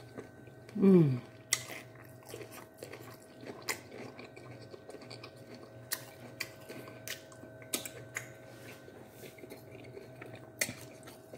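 A short wordless voice sound with a falling pitch about a second in, then scattered light clicks and taps, the last one from a fork and knife on a ceramic plate near the end, over a faint steady hum.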